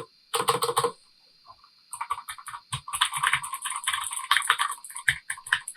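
Typing on a Tecknet mechanical gaming keyboard with blue switches: a quick run of keystrokes, a pause of about a second, then fast, continuous typing.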